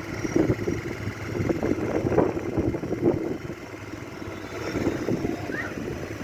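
Street traffic noise: cars and a small motor vehicle running by, an uneven rumble that swells and eases.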